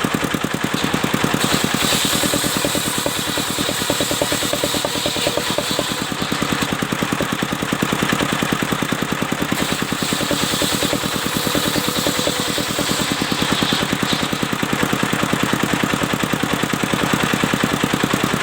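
Engine of a mobile circular sawmill running steadily, with a fast, even chug.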